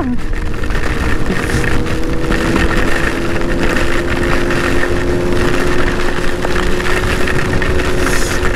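Motorcycle engine running under way with a steady note that creeps slightly higher, under a loud rush of wind and heavy rain on the rider's microphone.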